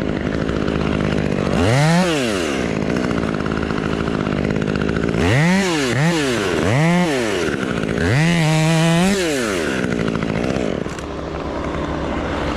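Chainsaw idling, revved up and let back down once about two seconds in and three times in quick succession around five to seven seconds, then held at high speed for about a second before dropping back to idle.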